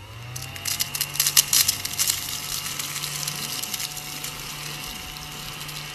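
Mini handheld vacuum cleaner's motor spinning up and running with a steady hum, with a dense crackle in the first couple of seconds as crumbs are sucked in.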